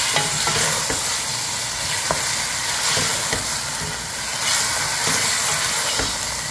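Bone-in meat pieces and garlic cloves sizzling as they fry in oil in a granite-coated pot, stirred with a wooden spoon that knocks and scrapes against the pot now and then.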